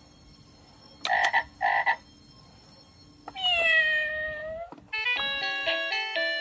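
Electronic baby toy playing recorded animal sounds as its buttons are pressed: two short frog croaks about a second in, then a cat meow, then a tinkling electronic tune that starts about five seconds in.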